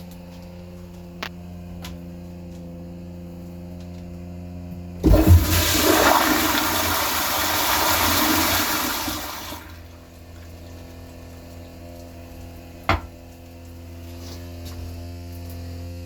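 2017 Zurn EcoVantage toilet flushing: a sudden loud rush of water about five seconds in, lasting some four seconds before it dies away. A steady low hum runs underneath, and a sharp click comes near the end.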